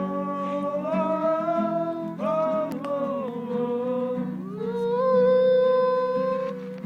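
A voice singing long, drawn-out notes with acoustic guitar accompaniment; the last note, held for about two seconds near the end, is the loudest.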